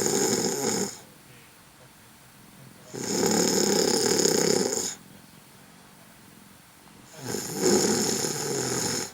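Ragdoll cat snoring loudly, one long snore every four seconds or so. The first snore ends about a second in, and two more of about two seconds each follow.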